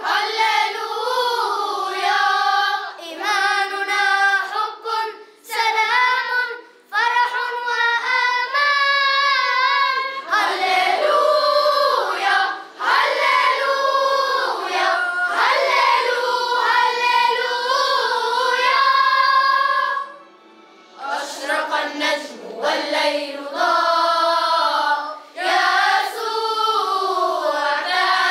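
A children's choir singing together in sung phrases with short breaks between them, and a longer pause about twenty seconds in.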